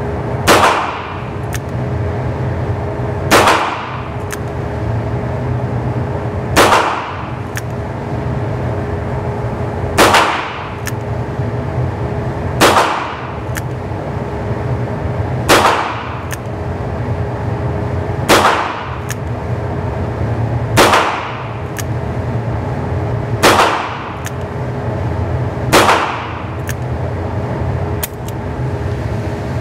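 Ruger GP100 .22 LR revolver fired ten times in single action, one shot every two and a half to three and a half seconds, each sharp crack followed by a short echo in the indoor range. A steady low hum runs underneath.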